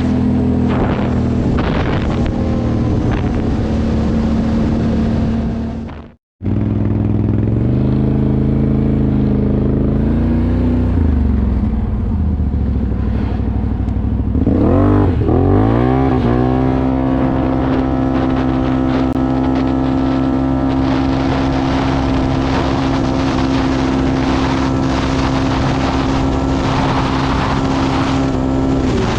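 Can-Am Outlander 1000R ATV's V-twin engine running under way. Its note wavers up and down for a few seconds, then climbs sharply under throttle about halfway through and holds high and steady. A brief gap in the sound about six seconds in.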